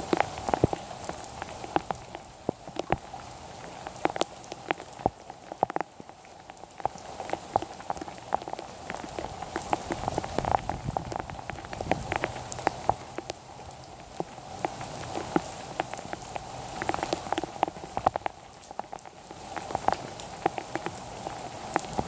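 Heavy rain falling steadily, with irregular sharp taps of drops striking close by.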